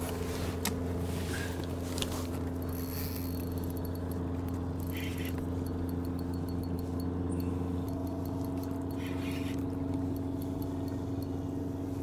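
Steady electric hum of a kayak's bow-mounted trolling motor holding position in the current, with a second, higher tone joining about two thirds of the way in. A few brief scratchy bursts of reel noise break in while a striped bass is being played on the rod.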